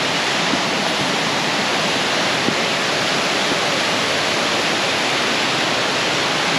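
Waterfall pouring into a pool: a steady, loud rushing of falling water.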